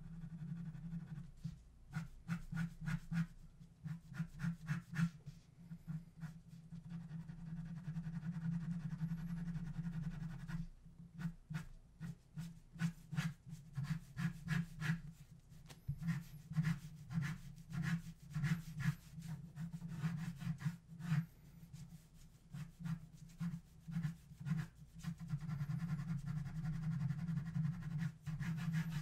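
Pen nib scratching across paper in quick runs of short sketching and hatching strokes, with brief pauses between the runs, over a steady low hum.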